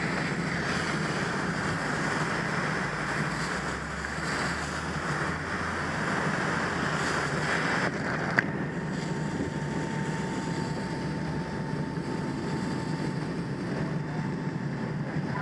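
Steady rushing hiss of a fire hose stream spraying water, with a sharp click about eight seconds in, after which the high hiss falls away.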